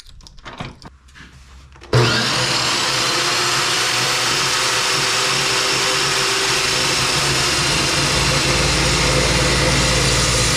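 Chop saw switched on about two seconds in, its motor then running steadily with a loud hum and hiss. A few light clicks and knocks come before it starts.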